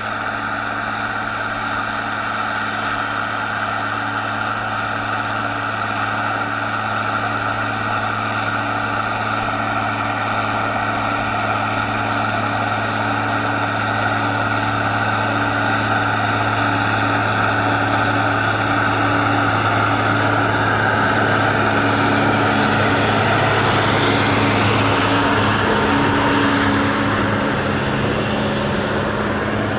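Rába Steiger 250 tractor's diesel engine running steadily under ploughing load, a constant drone. It grows louder about two-thirds of the way through, then eases slightly near the end.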